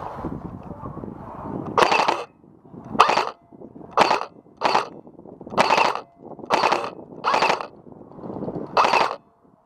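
Airsoft guns firing about eight short bursts, spaced unevenly roughly a second apart, with rustling movement in between.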